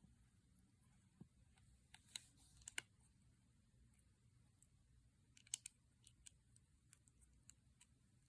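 Faint, scattered sharp clicks of plastic Lego bricks being handled and pressed together, loudest around two to three seconds in and again about five and a half seconds in.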